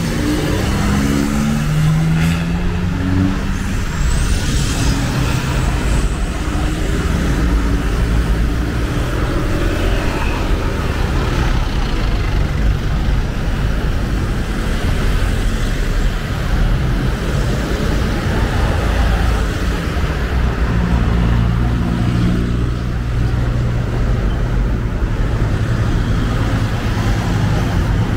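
Road traffic: cars and pickup trucks driving past through a crossroads, engines running under a steady rumble of tyre and traffic noise, with a sharp click about two seconds in.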